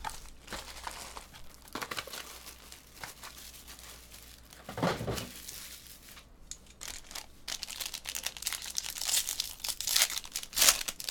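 Foil trading-card pack wrappers crinkling as they are handled, then a pack torn open by hand, with dense crinkling and tearing of the foil in the last few seconds. There is a duller, fuller rustle about five seconds in.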